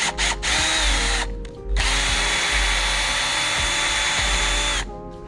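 Power drill boring holes in aluminum extrusion: a few quick trigger pulses, a short run, a brief stop, then a steady run of about three seconds with a high whine that cuts off near the end.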